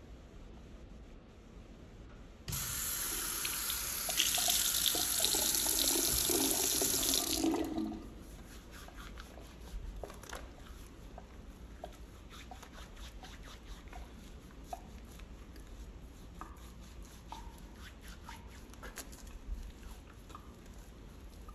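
Bathroom faucet running into a sink for about five seconds, getting louder partway through, then shutting off. Afterwards, soapy hands rubbing together with faint wet squishing and small clicks.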